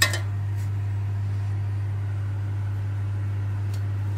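A metal fork flipping pork steaks in an air fryer's perforated basket: one sharp click right at the start, then a few faint taps, over a steady low hum.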